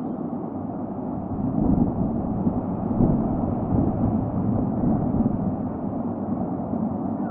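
Gusty wind buffeting the microphone of an outdoor nest camera, a low rushing noise that swells in stronger gusts about two and three seconds in.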